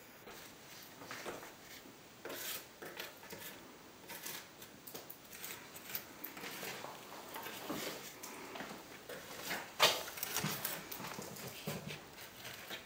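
A wooden stick scraping and tapping irregularly along fresh joint compound between gypsum imitation stones, taking off the excess and smoothing the joints, with a sharper knock about ten seconds in.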